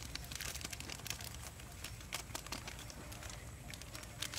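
Small seasoning sachets being crinkled and torn open by hand, soft irregular crackles over a low steady rumble.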